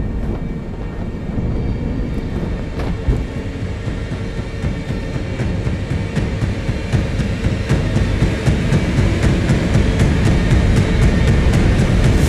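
Deep, steady rushing wind and rumble of a dragon's flight through storm clouds, with a regular clicking of about three a second building in the second half.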